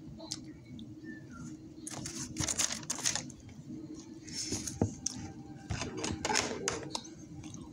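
Three spells of close rustling and quick clicking from hand handling near the phone, over a steady low hum.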